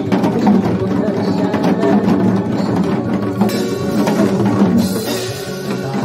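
Many janggu (Korean hourglass drums) struck with sticks together in a steady rhythm, over a recorded trot song with a beat.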